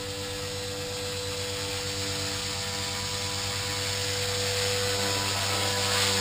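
Blade 450X electric RC helicopter flying, its motor whine and rotor hum steady in pitch and growing louder as it comes closer, loudest about six seconds in.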